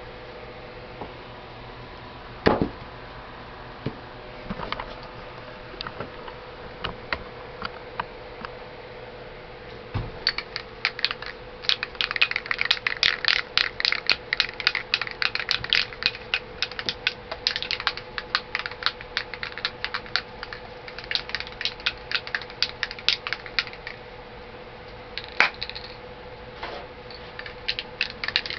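Metal items being handled on a workbench. There are a few single knocks, then from about ten seconds in a long run of rapid clicking and rattling, under a steady faint hum.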